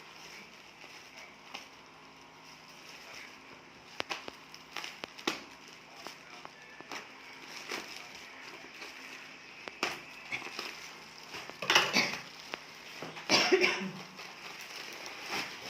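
Projector packaging being handled and opened during unboxing: scattered light taps and crinkles, with two louder rasping, rustling noises near the end.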